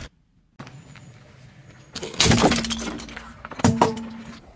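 Brittle objects cracking and shattering under a car tyre, in two loud bursts of crunching, about two seconds in and again near the end, over a faint steady hum.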